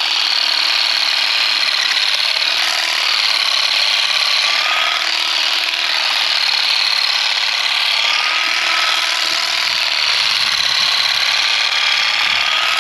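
Small handheld power garden shears running steadily while cutting back grassy plants: a continuous motor noise with a faint, slightly wavering whine.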